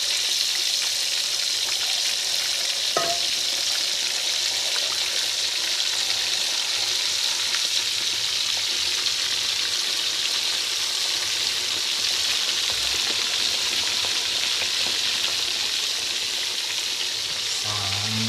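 Carp deep-frying in hot oil, a steady sizzling hiss from the fish just put into the pan.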